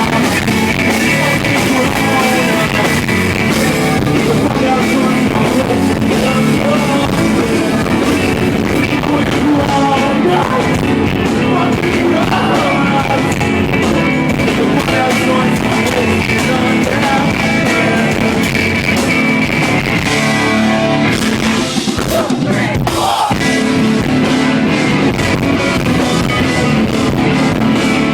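Live rock band playing loud amplified music, with electric guitars and drums, heard through a handheld recorder's microphone. The music thins out briefly about three quarters of the way through, then comes back in full.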